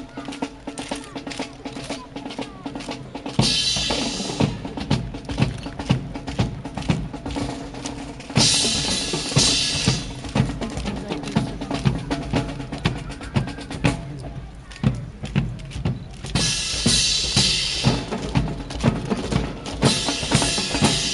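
Drums playing a steady march beat, with a dense run of snare and bass drum strikes and several louder stretches a second or two long.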